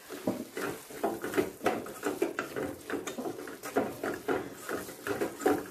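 Wooden spatula stirring a thick tomato masala in a metal kadai, scraping and tapping against the pan in quick, irregular strokes several times a second.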